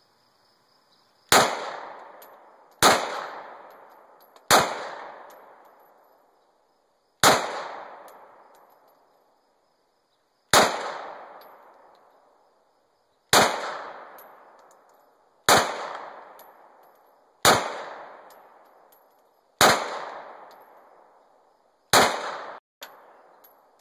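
Glock 17 9mm pistol fired in slow single shots, about ten of them spaced 1.5 to 3 seconds apart. Each loud crack is followed by an echo that fades over a second or two.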